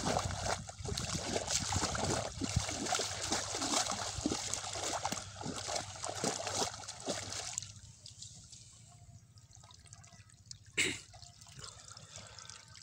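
Shallow water splashing and sloshing as a bamboo basket and a pole are worked through the muddy edge of the water. About seven and a half seconds in it turns much quieter, leaving water trickling and dripping from the lifted basket, with a single sharp knock near eleven seconds.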